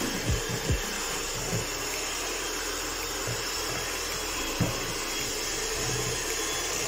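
Kenwood electric hand mixer running steadily, its beaters whipping cream cheese and condensed milk in a stainless steel bowl. The beaters knock against the bowl several times in the first second and a half and once more past the middle.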